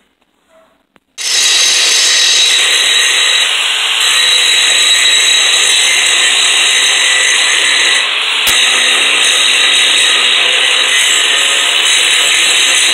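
Power grinder grinding down a steel tractor shift lever to make it fit, starting about a second in and running continuously with a steady high whine over the grinding noise. A brief click about eight and a half seconds in.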